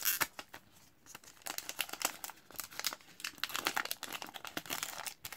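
Foil wrapper of an Upper Deck hockey card pack crinkling and tearing as it is ripped open by hand, in irregular crackly bursts.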